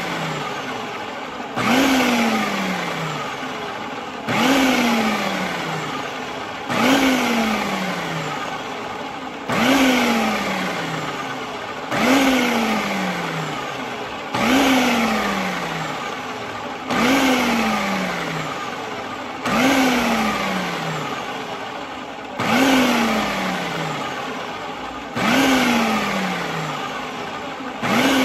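Countertop food processor pulsed in short repeated bursts, about one every two and a half seconds. Each burst starts suddenly, and the motor's pitch falls away as the blade coasts down. This is the pulsing that emulsifies oil drizzled into a Caesar dressing to a mayonnaise-like consistency.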